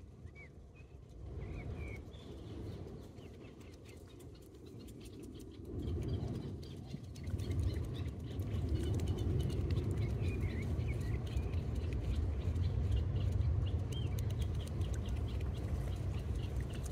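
Short high bird chirps scattered throughout, over a low steady rumble that grows louder about six seconds in.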